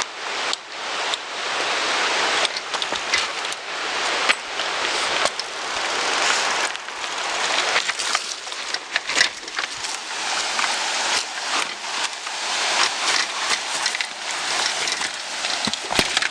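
Falling water of a waterfall rushing steadily, with many short knocks and crackles on top.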